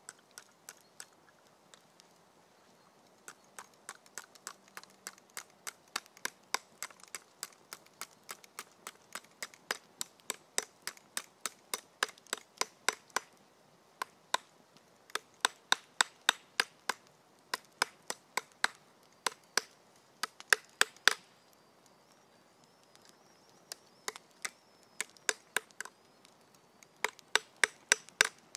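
Repeated hammer blows in quick runs of about three strikes a second, each a sharp knock that dies away at once, with short pauses about halfway through and again about three-quarters through.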